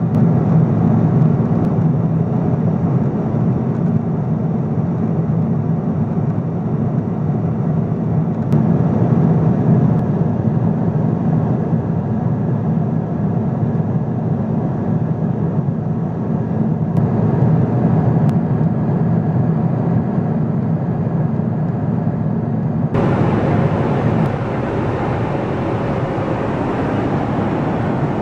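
Steady cabin noise of a Boeing 777-200ER in cruise: a constant low rumble of its GE90 engines and the airflow over the fuselage. About 23 s in, the sound cuts to another stretch of the same cabin noise, a little brighter and more hissy.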